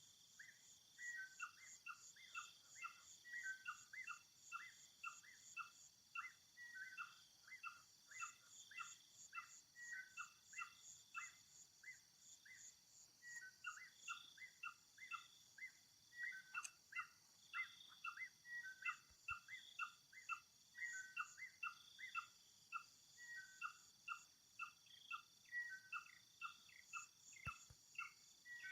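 Insects trilling steadily with a high pulsing buzz, while a bird chirps continuously in short, quick notes grouped into repeated falling phrases.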